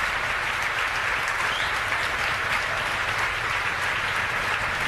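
A crowd applauding steadily, a dense patter of many hands clapping, as the Falcon 9 passes max Q, its maximum dynamic pressure.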